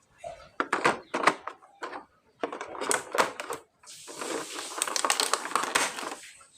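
Plastic toys and packaging being handled: a run of sharp clicks and rattles, then about two seconds of crinkly rustling.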